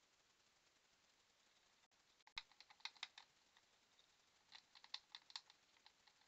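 Faint, irregular little clicks and scratches in quick clusters, starting about two seconds in: mice scrabbling on and around a metal live-catch mouse trap on a wooden floor.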